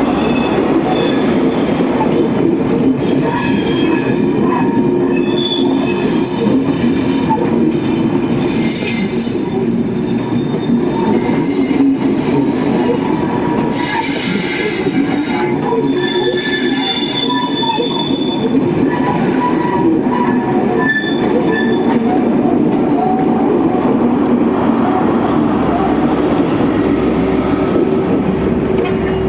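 A Class 43 HST-powered test train runs past on curved track with a steady rumble of wheels. Over the rumble come repeated high squeals from the wheels on the curve, some short and some held for a second or two.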